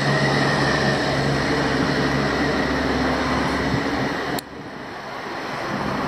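Steady road-traffic noise with the hum of a running vehicle engine. It cuts off suddenly about four seconds in, leaving a quieter hiss that slowly grows louder.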